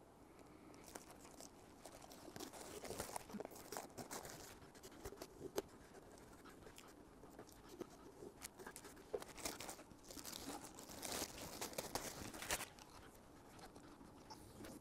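Faint crinkling and tearing as masking tape and plastic trash-bag sheeting are peeled off a model rocket's airframe, with scattered small clicks and rustles that get busier about ten to twelve seconds in.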